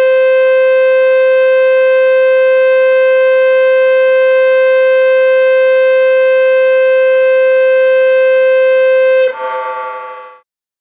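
Dam warning siren sounding one loud, steady tone. Near the end it cuts out, and the tone drops in pitch and fades away within about a second. It warns that the river below the dam may rise sharply.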